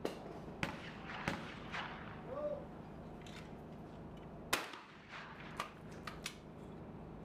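Shotgun fired at clay targets: one loud, sharp report about two-thirds of the way through, with several fainter sharp cracks spread before and after it.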